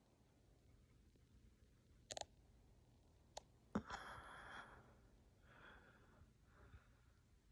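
Near silence in a small room, broken by a few faint clicks and, about four seconds in, a short breathy exhale close to the microphone, with softer breaths after.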